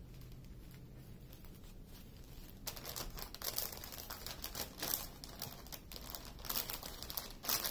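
Small plastic zip-lock bags of diamond painting drills crinkling as they are handled and gathered up, starting about two and a half seconds in and going on irregularly.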